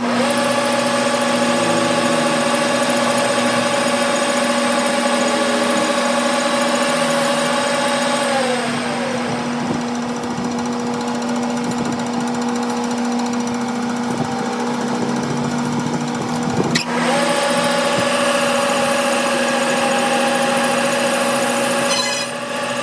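A workshop machine running steadily with a hum and a whine. The whine drops a step in pitch about eight seconds in and comes back up near seventeen seconds, with a sharp click as it does.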